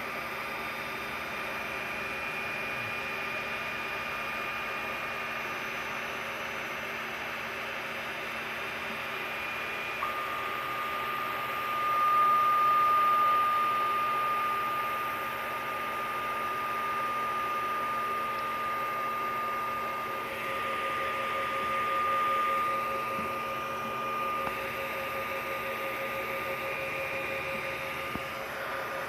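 Monoprice MP Maker Pro Mk.1 3D printer running a print: its stepper motors whine in steady tones over the hum of its fans. About ten seconds in, the whine drops to a lower pitch and briefly grows louder, and a second lower tone joins later.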